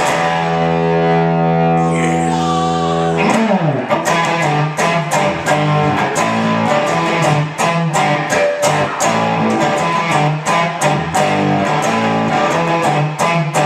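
Rock instrumental on distorted electric guitar: a chord held for about three seconds, a quick slide down in pitch, then a driving rhythmic riff with a steady beat.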